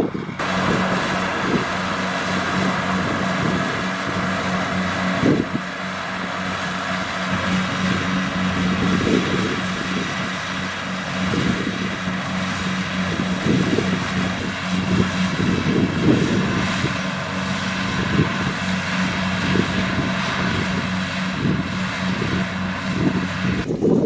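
Kubota DC-70 Plus rice combine harvester working through standing rice: its diesel engine runs steadily under load with a constant hum, over the whir of the threshing and straw-discharge machinery and irregular low knocks.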